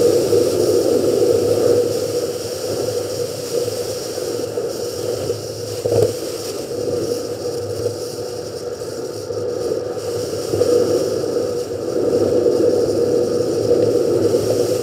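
Subaru car driving along a gravel forest road, heard from a camera on its bonnet: steady engine and tyre noise. There is a single knock about six seconds in.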